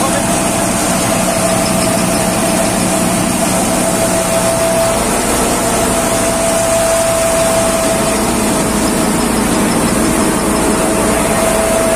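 Maruti Jumbo Tokri combine thresher running steadily while threshing mustard: a constant whine over a low machine drone.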